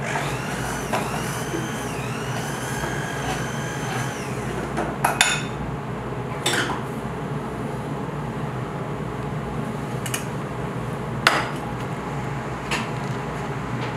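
Pots, pans and utensils knocking and clinking on a stainless-steel stove and counter: several sharp knocks spread out, over a steady background hum. A faint whine rises and falls during the first few seconds.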